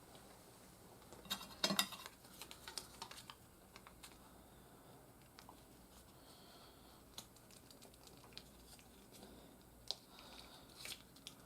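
Light plastic clicks and taps from handling an action figure and its accessories, with a brief cluster of louder clicks about a second and a half in, then sparse scattered ticks.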